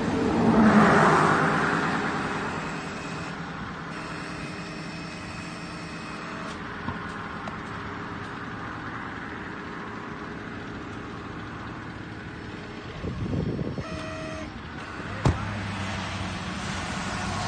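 Tow truck engines running as one truck pulls another out of the mud, with a loud swell of engine noise about a second in and another surge near the end. A brief tone sounds just before a single sharp knock about fifteen seconds in.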